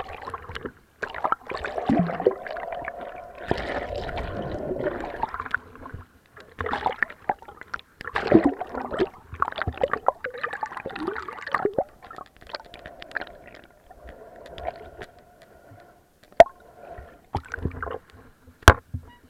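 Pool water sloshing and gurgling against a camera as it is dipped under the surface and lifted out again, in irregular gushes with muffled stretches while submerged. Two sharp knocks come near the end.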